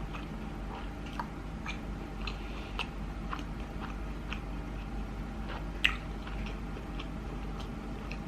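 Close-up chewing of a mouthful of sushi, with small wet mouth clicks all through and one sharper click about six seconds in.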